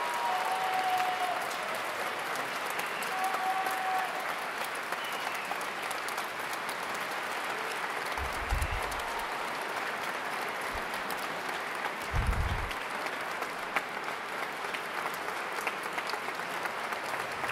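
Audience applauding steadily, with two short low thumps partway through.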